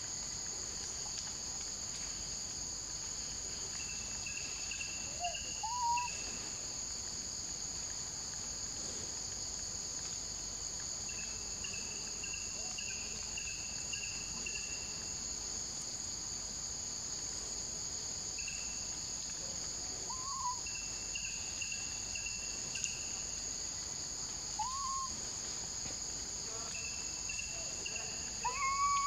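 Steady high-pitched drone of forest insects, with runs of short chirping calls every few seconds. A few brief rising-then-falling calls, the loudest sounds, stand out about a fifth of the way in, twice past the middle and at the very end.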